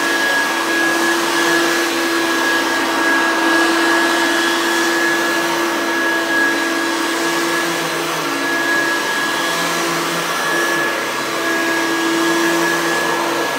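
Oreck XL upright vacuum cleaner running steadily over thick medium-pile carpet, its motor making a constant whine over a rushing airflow.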